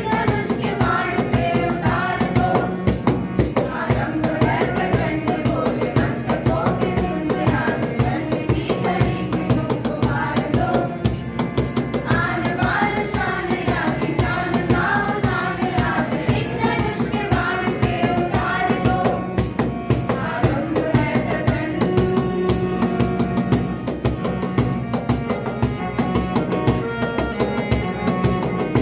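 A Hindi song: singing over a fast, steady beat of jingling hand percussion.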